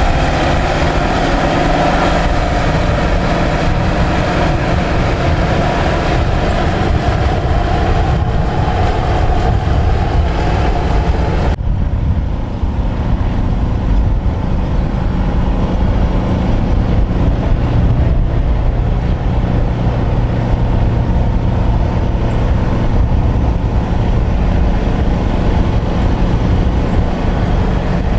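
White 4-225 four-wheel-drive tractor's diesel engine running under load as it pulls a plow, loud and close at first. Partway through the sound cuts abruptly to a lower, more distant engine drone.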